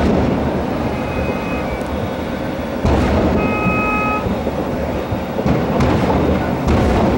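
Fireworks display heard from a distance: a continuous low rumble of bursts, with a sharp bang about three seconds in and several more near the end. Two short whistle-like tones sound between the bangs.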